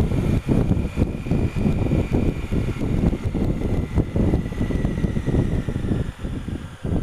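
Wind rumbling and buffeting on a helmet camera's microphone while riding a Honda Africa Twin CRF1000L motorcycle, with the bike's engine running underneath.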